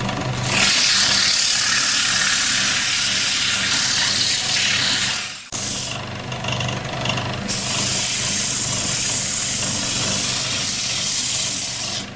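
Sandpaper pressed against a wooden bowl spinning on a homemade electric-motor lathe: a steady motor hum under a loud, scratchy hiss of sanding. The sound breaks off for a moment a little before halfway, then the sanding carries on.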